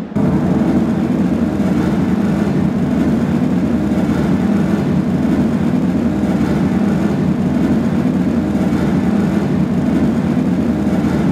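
Dense electronic drone from a Max patch: recorded speech looped through delay lines with feedback, smeared into a steady, rumbling wash of sound.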